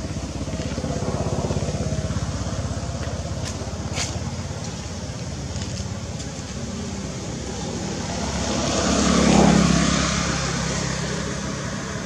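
Passing road traffic: a motor vehicle's engine running, then a vehicle going past that swells to its loudest about nine seconds in and fades. A sharp click about four seconds in.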